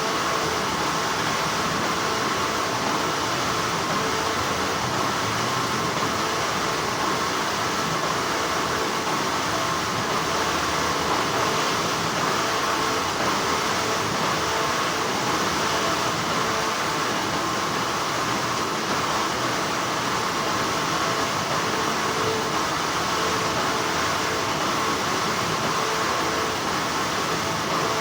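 Continuous, steady hum of textile factory machinery, an even mechanical noise with no pauses or changes.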